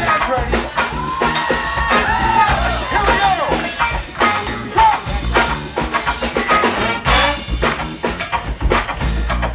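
Live big band of saxophones, trumpets, trombones, electric guitar, keyboard and drum kit playing an up-tempo tune over a steady drum beat.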